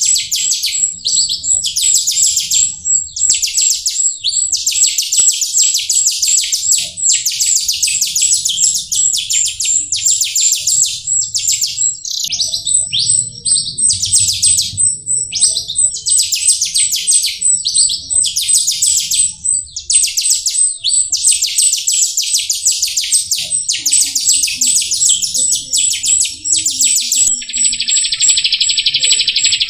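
Jalak rio starling singing a long, rapid, chattering song in phrases of a second or two with short breaks, over a thin, steady high tone. Near the end the song gives way to a steadier high buzzing hiss.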